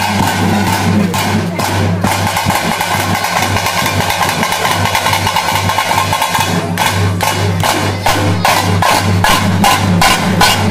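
Dappu frame drums beaten with sticks in a fast, driving rhythm, the strokes turning sharper and more distinct about two-thirds of the way in.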